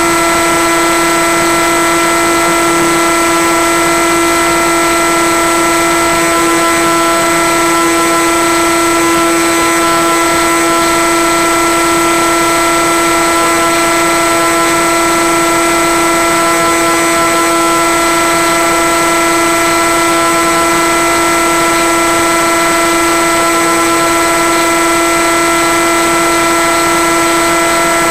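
Steady hum of a Skywalker FPV plane's electric motor and propeller at constant cruise throttle, several fixed tones over a heavy hiss, as picked up on board and sent down the analog video link.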